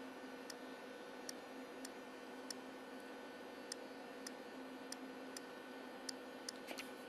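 Faint, irregularly spaced ticks, about a dozen, as letters are typed on an iPod Touch's on-screen keyboard, over a steady low hum.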